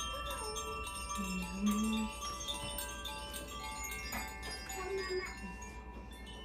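Makino-style Advance Chimes ringing, several pitches sounding together and ringing on, with a fresh strike about four seconds in.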